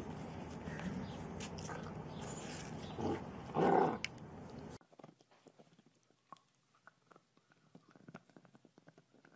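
A large dog's short vocal sound about three and a half seconds in, over steady background noise. After an abrupt cut near five seconds there are only faint, scattered clicks.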